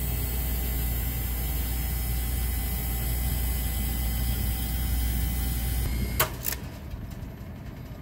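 A refrigeration condensing unit running steadily with a low hum, its compressor pumping the R-404A suction side down to about zero pounds with the low-pressure switch jumped out, which the technician takes for low refrigerant or a pump-down. About six seconds in the running cuts off, followed by two sharp clicks.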